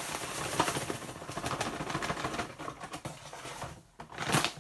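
Granulated sugar pouring from a paper bag into a foil Mylar bag: a steady grainy patter and hiss with crinkling of the bags. It dies away just before the end, followed by a few sharper rustles of the bags being handled.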